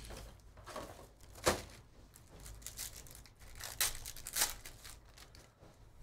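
Foil trading-card pack wrapper crinkling and being torn open by hand. There is a sharp snap about a second and a half in and two sharp rips around four seconds in.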